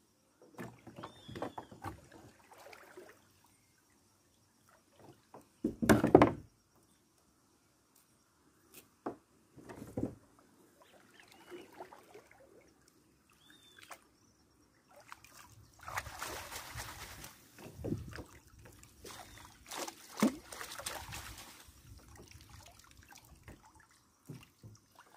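Shallow river water sloshing and trickling as a hand sieve net is swept through it and lifted out, with longer stretches of water running off through the mesh past the middle. A loud burst about six seconds in.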